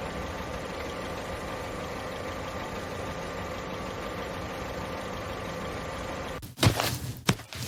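Steady motor hum with a few faint steady tones, the sound of a toy airplane's motor in flight. About six seconds in it cuts off and gives way to a run of sharp knocks and clicks.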